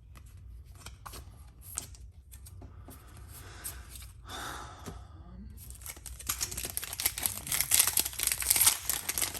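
Light clicks and rustles of cards and packaging being handled, then, from about six seconds in, a Yu-Gi-Oh! booster pack's foil wrapper crinkling loudly as it is torn open.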